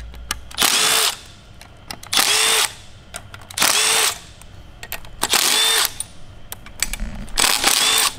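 Handheld cordless power driver spinning out fuel-rail bolts on an engine's cylinder head, in five short bursts of about half a second each, roughly a second and a half apart.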